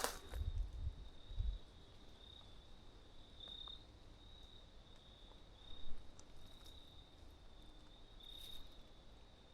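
Insects chirping steadily in a high pitch, the chirp swelling and fading in short pulses. A few low thumps come in the first second and a half, and there is one sharp click about six seconds in.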